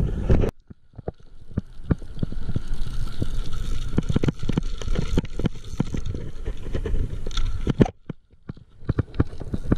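Gusty wind buffeting the microphone in irregular low thumps, over the steady rush of river water.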